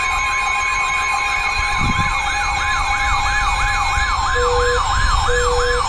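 Electronic siren-style alert tones: a steady high tone under a fast wailing sweep that slows after about halfway. Short, lower beeps join about four seconds in, roughly once a second.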